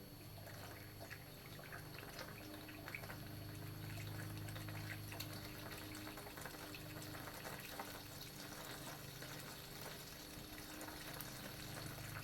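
DEX-COOL coolant being poured from a gallon jug into the car's pressurized coolant reservoir, a faint irregular trickle as the drained cooling system is topped up, over a steady low hum.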